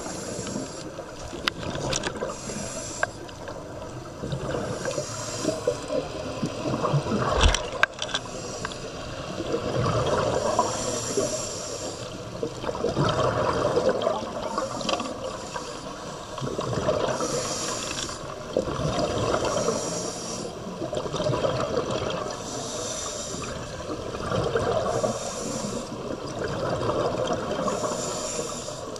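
Scuba diver breathing through a regulator underwater: breaths in and out with bubbling exhalations, recurring every two to three seconds. A sharp knock about seven seconds in.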